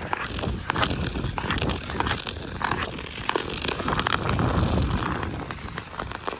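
Ice skate blades scraping and cutting across pond ice in short, irregular strokes, over a low rumble that swells around four to five seconds in.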